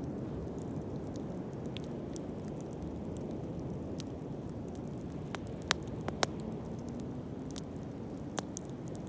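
Wood fire burning with a steady low rush and scattered crackles, with two sharp pops a little past the middle.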